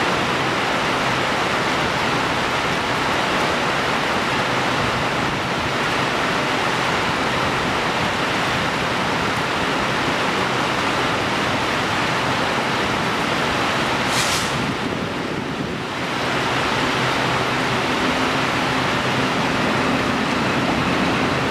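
Heavy rain falling steadily, a dense even hiss. A brief high hiss comes about two-thirds of the way in. Near the end, a low steady hum rises as a Taiwan Railways E400-series electric locomotive approaches.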